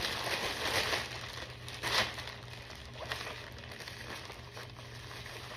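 Crinkling and rustling of a plastic clothing package being handled, with a sharper crackle about two seconds in.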